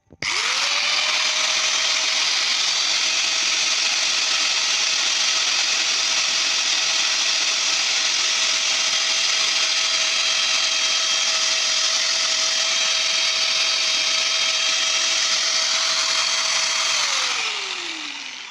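Corolla angle grinder switched on and run without load: the motor spins up almost at once to a steady high whine. About seventeen seconds in it is switched off and winds down, its pitch falling as it fades.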